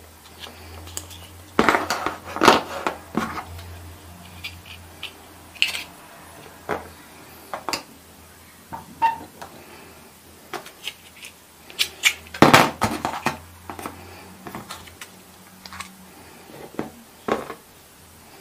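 Small hard-plastic dollhouse furniture pieces being handled and set down on a wooden board: irregular clicks, taps and light clatters, loudest in clusters about two seconds in and again about twelve seconds in.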